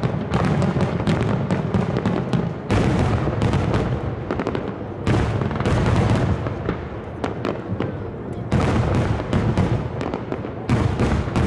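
Fireworks barrage: aerial shells bursting in a dense, rapid string of bangs and crackles with no pause between them. Fresh surges of loud bursts come about every two to three seconds.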